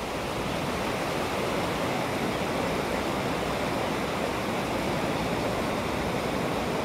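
Steady rush of the Lahn river running high in flood, growing slightly louder over the first second or two and then holding even.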